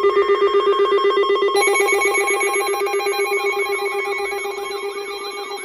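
Layered electronic alarm tones: a fast-trilling, bell-like tone with higher tones above it, more tones joining about one and a half seconds in, then quick rising-and-falling warbles from about three seconds in.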